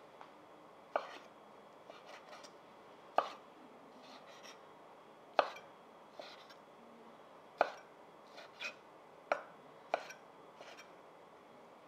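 Kitchen knife slicing raw bonito on a wooden cutting board, the blade knocking on the board at the end of each slice: six sharp knocks, mostly about two seconds apart, with softer sounds of the knife drawing through the flesh between them.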